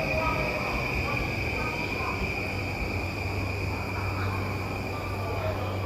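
Railway platform ambience: a steady high-pitched tone and a low hum over wind buffeting the microphone, with faint traces of a train running off fading out in the first second or so.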